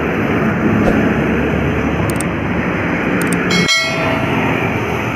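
A heavy truck passing close by on the road, a loud steady rush of engine and tyre noise. About three and a half seconds in, the sound breaks off for an instant and a short high tone sounds.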